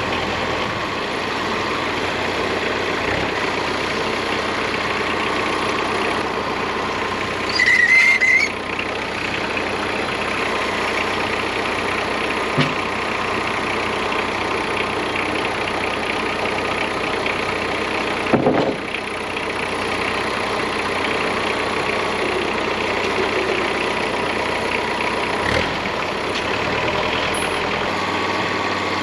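Wood-Mizer LT40 portable bandsaw sawmill running steadily. A few brief louder clunks and knocks sound over it, with a short high wavering squeal about eight seconds in and the loudest knock a little past halfway.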